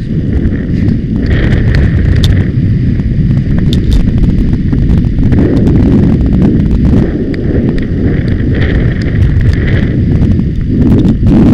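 Wind buffeting a helmet-mounted camera microphone on a galloping horse, a heavy continuous rumble, with scattered clicks and knocks from the ride.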